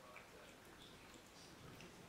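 Near silence with faint, irregular drips and ticks of rain falling near the microphone during a night thunderstorm; no thunder.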